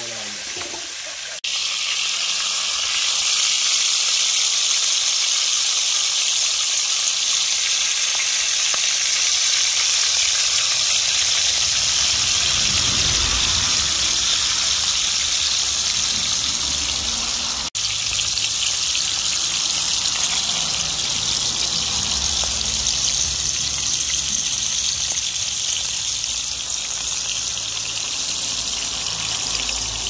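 Hot oil sizzling steadily in a pan as whole small wild birds fry, a dense high hiss that breaks off for an instant about a second and a half in and again a little past halfway.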